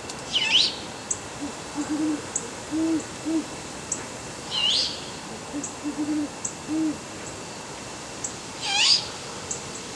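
Great horned owls hooting: two series of deep, rhythmic hoots, about five in each. Three louder, high-pitched swooping calls cut in about half a second, four and a half seconds and nine seconds in.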